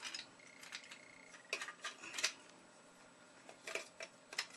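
Handling clatter of an LNB skew bracket being fitted onto a C-band LNB: a few scattered hard clicks and knocks, in two short clusters about a second and a half in and near the end.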